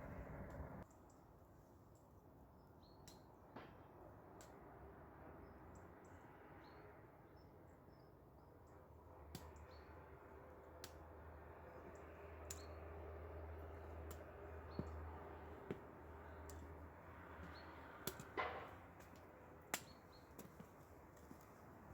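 Quiet outdoor ambience: faint, scattered bird chirps and a few sharp clicks, with a low hum in the middle stretch.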